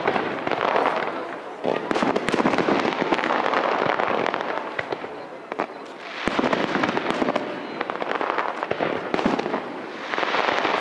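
Fireworks display: a dense run of crackles and pops from bursting shells and crackling comets, swelling and easing in waves.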